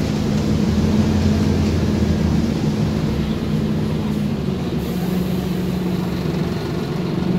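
Scania OmniCity bus's diesel engine running, heard from inside the saloon over road noise. Its note shifts about halfway through.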